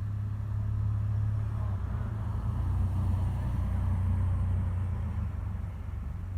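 City road traffic: a motor vehicle passing, a low rumble that builds, is loudest in the middle and fades near the end.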